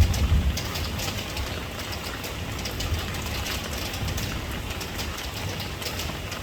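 Steady rain with many individual drops ticking, over a low rumble that is strongest near the start.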